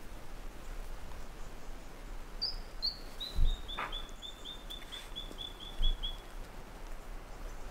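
A bird calling: two or three high notes stepping down in pitch, then a quick, even run of about a dozen notes at roughly four a second. Two low thumps stand out, about a third and three quarters of the way in, over a steady low rumble.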